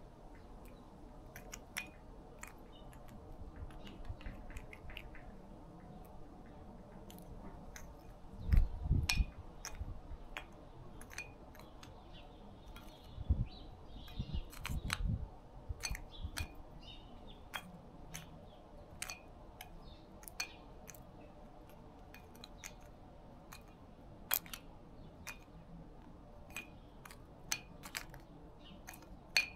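Eurasian jay pecking at unshelled peanuts in a terracotta dish: irregular sharp clicks and taps of beak and peanut shells against the clay. A few louder dull thumps come about a third of the way in and again around the middle.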